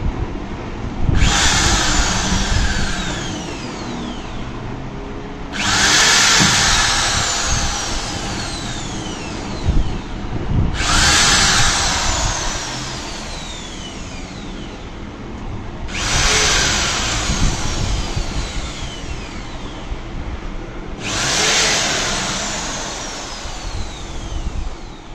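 Corded electric hand drill boring pilot holes into a wooden base for self-threading screws, in five runs of a few seconds each about five seconds apart. Each run starts abruptly with a whine that falls in pitch as it goes.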